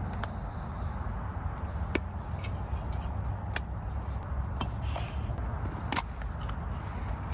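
Camp cooking gear being handled: a few sharp clicks and light knocks, spaced a second or two apart, over a steady low rushing background.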